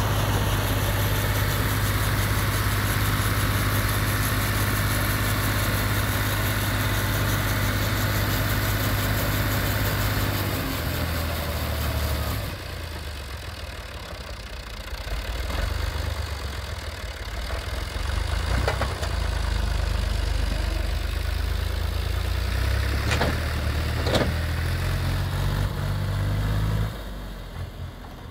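Tractor diesel engine running steadily. About twelve seconds in its note drops and it goes quieter, then it picks up again under load as it tows a brick-making machine. A few sharp knocks come late on.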